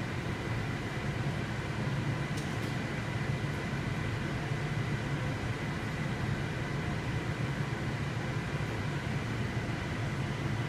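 Steady low mechanical hum with hiss over it and a faint thin high whine, the even background noise of running equipment.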